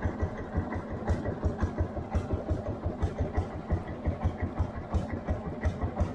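Boat engine running slowly at trolling speed, a steady low chugging of about five beats a second.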